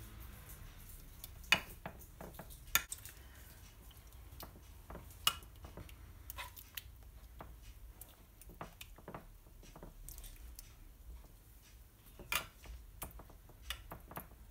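Metal spoon clinking and scraping against a saucepan, a frying pan and a glass baking dish as sauce is spooned out and spread, with many light clicks and a few sharper clinks every few seconds.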